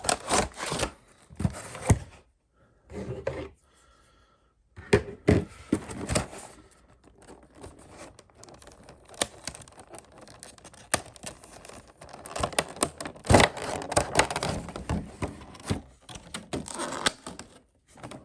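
Cardboard collection box and its packaging being opened by hand: tearing, scraping and crinkling, with knocks and taps as the box and cards are handled, and a short lull a few seconds in.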